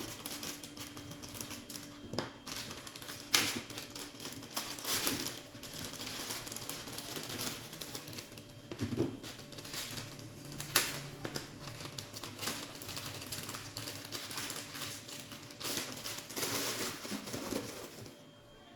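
Hands handling a boxed action figure's packaging: irregular clicks, taps and crinkling of cardboard and plastic, with a couple of sharper snaps about three and eleven seconds in.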